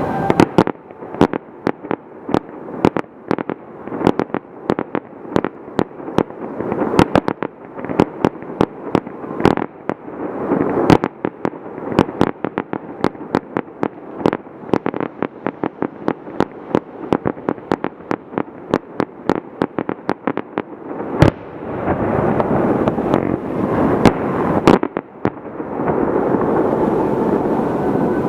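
Fireworks bursting in a rapid, dense barrage: many sharp bangs, several a second, over a continuous crackle, with one loudest bang about three-quarters of the way through, followed by a thicker rumbling crackle.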